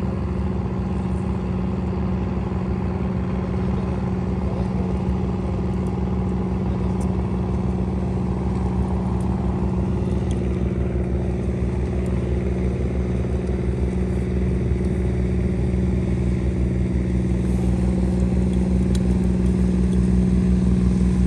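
A motorboat engine running steadily with a low, even drone, slowly growing louder toward the end.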